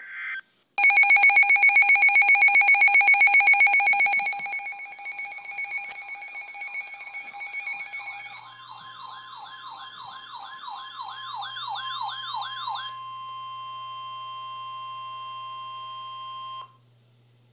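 Emergency alert tones for a severe thunderstorm warning. A loud, rapidly pulsing buzzer-like alarm tone fades after about four seconds. Then comes a fast warbling siren, which gives way to a steady alert tone that cuts off suddenly near the end.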